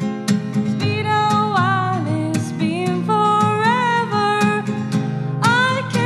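A woman singing a slow melody, holding notes that waver, over a strummed acoustic guitar.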